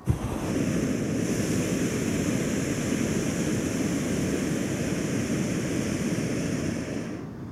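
Hot-air balloon's propane burner firing in one long blast, a loud steady rushing noise that starts abruptly and cuts off about seven seconds in.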